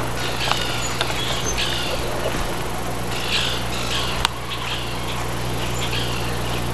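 Short, high-pitched animal chirps repeating irregularly over a steady low hum, with one sharp click about four seconds in.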